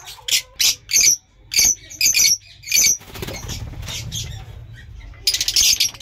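Young lovebird squawking: a series of short, shrill calls about every half second, then after a pause a brief rapid flutter near the end.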